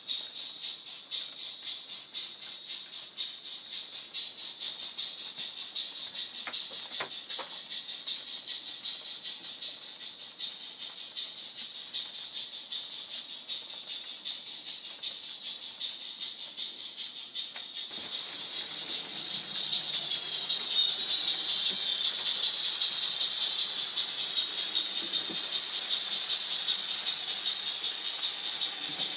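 Model trains running on a model railway layout: a steady high-pitched hiss of wheels and small motors on the track with fast, even ticking, louder from about two-thirds of the way in.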